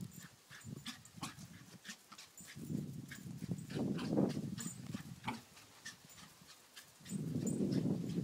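A Lakeland Terrier running about on grass: quick, irregular soft thuds of footfalls, with stretches of low rumbling in the middle and near the end.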